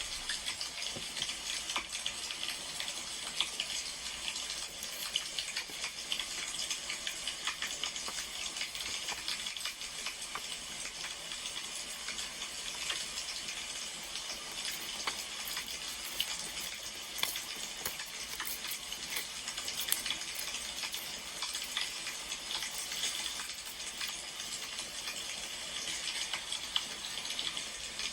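Wood fire crackling: a steady hiss with a dense scatter of small pops and snaps.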